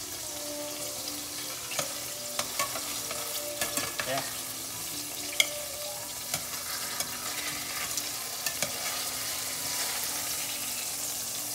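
Olive oil and chicken breasts sizzling steadily in a stainless-steel frying pan, with scattered sharp clicks of metal tongs on the pan as the browned pieces are lifted out.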